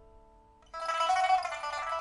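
Old rosewood pipa with a newly fitted soundboard and frets, test-played after repair: a note rings and fades, then about 0.7 s in a loud, dense passage starts sharply.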